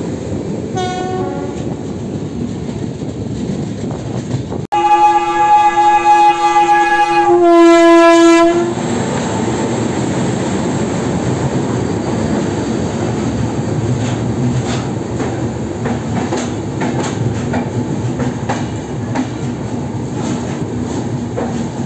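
Indian Railways locomotive horn sounding two blasts about five seconds in, a long one and then a shorter, louder one. Around the horn is the steady rumble of a train on the rails, with scattered clicks.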